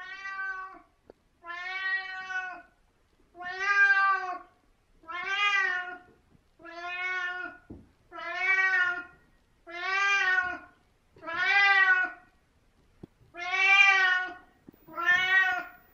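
A 17-year-old domestic cat meowing over and over: about ten long meows, each roughly a second long and about a second and a half apart, each rising slightly in pitch and then falling.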